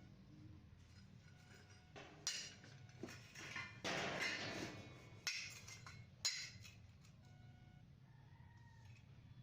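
Scattered metal clinks and knocks, with a short burst of hissing noise about four seconds in, over a faint low hum.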